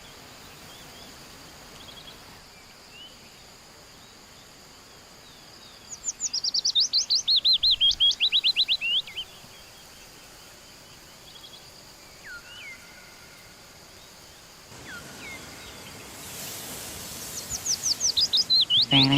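Songbirds singing: two long series of rapid, repeated high down-slurred chirps, one about six seconds in and another near the end, with a few faint single whistled notes between, over a steady hiss of background noise.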